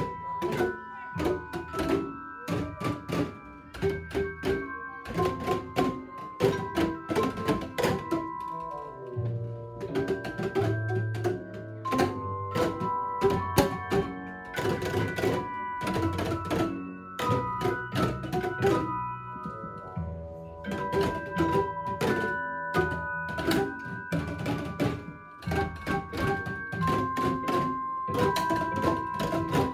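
A class playing Boomwhackers, plastic tuned percussion tubes, struck in a steady rhythm of short, hollow pitched knocks over a melody of held notes.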